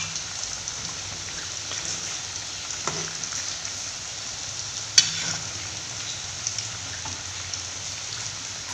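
Potato chunks, shallots, garlic and chilies deep-frying in hot oil in an aluminium wok: a steady sizzle, with a metal ladle stirring and one sharp knock about five seconds in.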